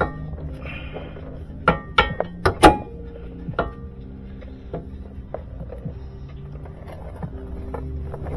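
Background music with steady held notes, over which a few sharp metal clicks and knocks come in a cluster about two seconds in. They come from a hand ratchet and tools working a bolt on the kei truck's front steering linkage.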